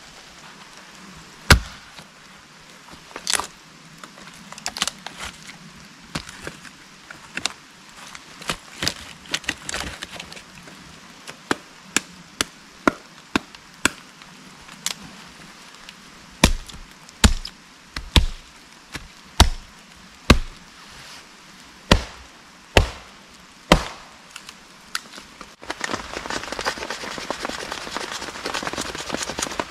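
Firewood being split by hand: a long series of sharp wooden knocks and cracks, coming about once a second at their steadiest, then giving way near the end to a fast, dense scratchy rasping of a knife shaving a stick.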